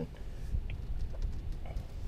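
Low, steady rumble of a car rolling slowly, heard from inside the cabin, with a couple of faint ticks.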